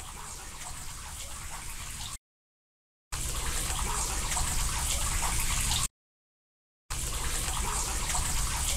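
Steady rush of running water, cut off twice by complete dropouts to silence about a second long; it comes back louder after the first.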